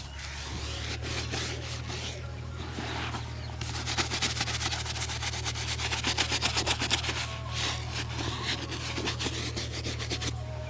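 A leather shoe being rubbed and buffed in a shoe shine, first with a continuous rubbing hiss, then from about three and a half seconds in with quick back-and-forth brushing strokes that stop shortly before the end.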